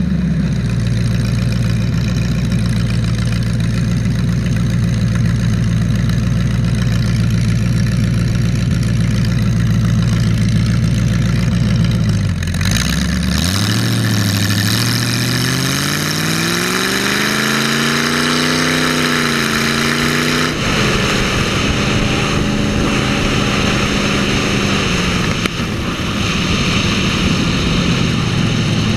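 Big-block Chevy V8 in a lawn mower running steadily. About twelve seconds in it dips briefly, then revs up and back down over several seconds before settling into a steady run again.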